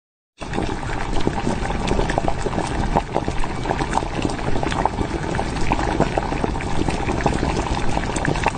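Steady crackling and bubbling of food cooking in a small pan, dense with fine pops, starting after a brief silence.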